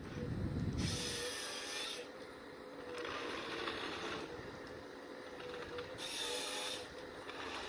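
Heavy forestry machine running, with a steady whine and a low rumble near the start. Bursts of hiss come and go about every two or three seconds.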